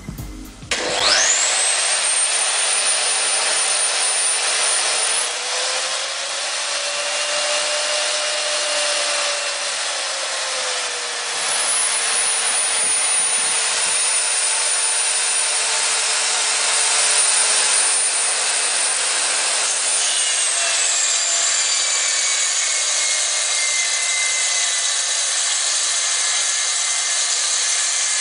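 Metabo KGS 254 I Plus mitre saw starting up with a fast-rising whine, then running at speed. Its pitch sags twice for several seconds as the blade is loaded in a cut.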